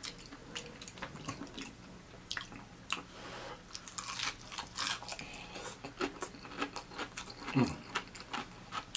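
A person biting into and chewing crispy fried chicken close to the microphone, with many sharp crunches of the fried breading.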